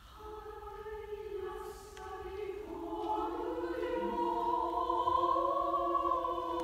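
Women's choir singing sustained chords in several parts, starting soft and swelling louder about three seconds in.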